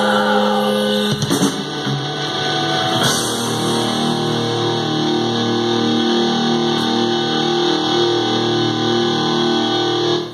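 Live rock music from a robot band: electric guitar and drum kit, a held chord giving way about a second in to a riff of repeated notes, which stops suddenly.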